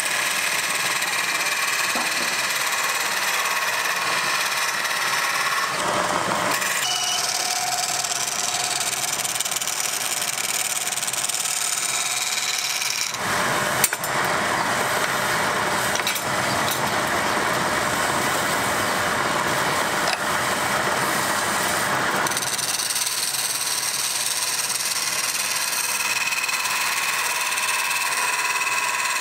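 Wood lathe running while a hand-held turning tool cuts into the spinning wooden blank, a steady scraping rush of the cut whose tone changes a few times as the tool moves along the work. There is a brief click about 14 seconds in.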